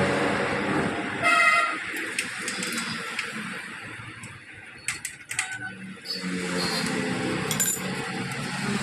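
Background traffic with a short vehicle horn toot about a second in. A few sharp metal clicks come around five seconds in as hands work the front axle and fork of a child's bicycle.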